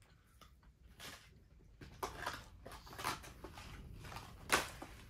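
Close chewing and mouth sounds of someone eating fast food, with rustling and handling of a cardboard food box; irregular bursts, the sharpest about four and a half seconds in.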